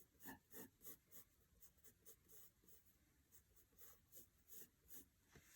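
Pencil sketching on paper in small, short strokes: faint, quick scratches, a few a second.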